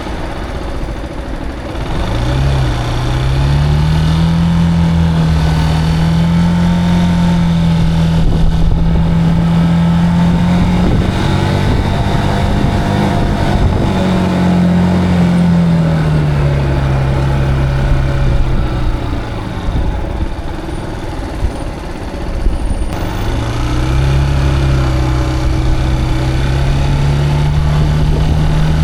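Zontes cruiser motorcycle engine under way. It pulls away about two seconds in and holds a steady speed. It slows down in the middle, then accelerates again near the end.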